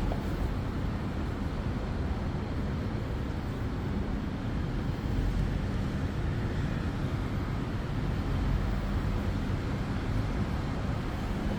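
Begode Extreme Bull Rocket electric unicycle ridden at 25 km/h or more: steady wind and road noise, with no grinding, the fault the new firmware was meant to cure.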